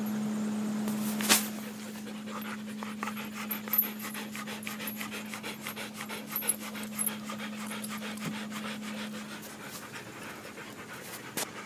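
Husky panting rapidly, close up, several quick breaths a second. There is a sharp thump about a second in, and a steady low hum that stops near the end.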